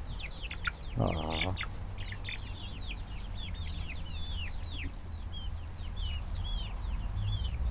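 Flock of young chickens peeping: many short, high cheeps that slide downward in pitch, overlapping continuously.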